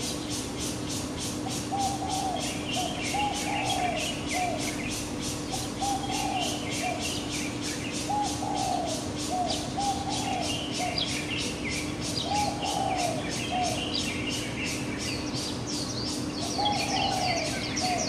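Birds in a morning chorus: one bird gives low cooing phrases of three or four notes, repeated every few seconds, while smaller birds chirp higher up. A steady low hum runs underneath.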